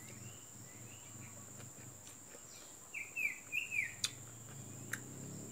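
A small bird chirping against a steady background hiss: a few faint calls in the first second, then a quick run of four short, falling chirps about three seconds in. Two sharp clicks follow.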